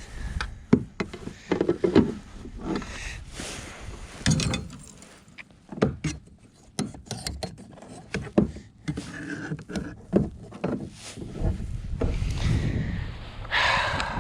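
Irregular knocks, clicks and rubbing of gear being handled against a kayak's hull, with a brief rushing noise near the end.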